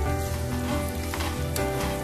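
Chicken drumsticks, onions and spices sizzling as they fry in a pan, with two short bursts of stirring about a second in and near the end. Background music with a steady low beat plays throughout.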